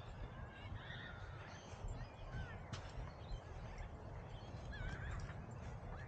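Short, high, whining animal calls that rise and fall in pitch, repeated irregularly over a steady low rumble, with one sharp click near the middle.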